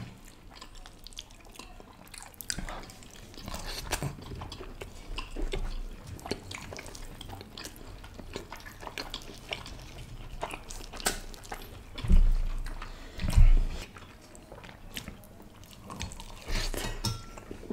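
Close-miked chewing and wet mouth sounds of people eating naan dipped in curry, with many small clicks and smacks. Two louder low thuds come about two-thirds of the way in.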